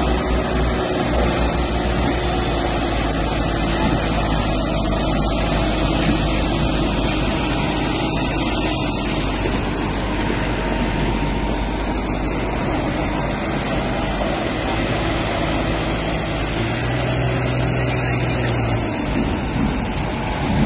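Farm tractor's diesel engine running hard under load, hauling a trolley heavily loaded with sugarcane. The engine note is steady, with a deeper tone joining for a couple of seconds near the end.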